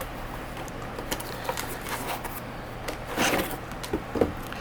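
A wooden toy tool set's packaging being opened and handled: scattered light clicks, knocks and rustles, with a longer rustle about three seconds in.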